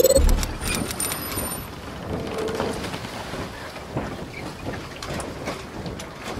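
Sound effects for an animated logo intro. A low boom comes right at the start, then a brief high shimmer, then a steady hiss dotted with crackles that slowly dies down.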